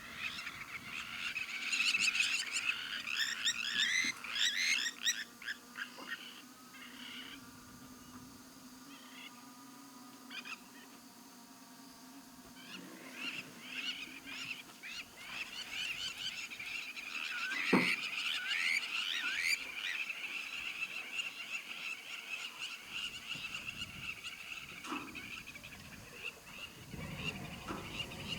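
Wetland chorus of frogs and birds: rapid clicking and chirping calls, with a steady high trill setting in about halfway through.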